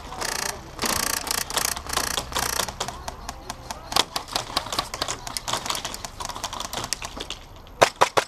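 Airsoft guns firing: rapid, irregular sharp clicks and snaps, with a rustling scuffle in the first few seconds.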